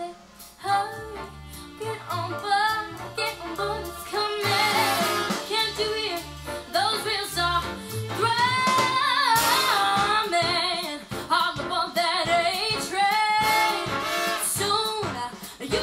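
Jazz song with a woman singing over a band and a stepping bass line, played back through a homemade two-way sealed-box loudspeaker (14 cm woofer, dome tweeter, 2 kHz crossover) and recorded in the room.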